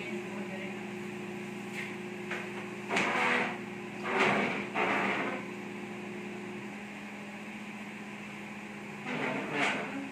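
Whirlpool microwave oven running with a steady hum while it heats food. A few brief louder noises stand out over it, about three seconds in, around the middle, and near the end.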